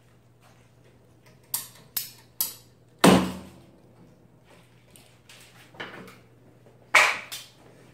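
Wooden crate boards knocking and clattering as they are handled and set down: three quick sharp knocks, then a heavier wooden thud about three seconds in, and another loud knock near the end.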